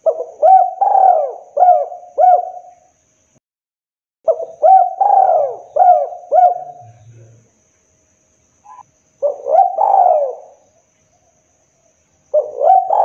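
Spotted dove cooing in four phrases. Each phrase is a quick run of low, hoarse coos, and the phrases are spaced by pauses of about one and a half to two seconds.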